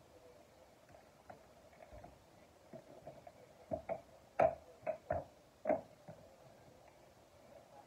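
Tool handling on a small engine's oil drain screw: a socket wrench clicking and knocking against metal and plastic inside a generator's oil access panel, about six sharp clicks close together in the middle.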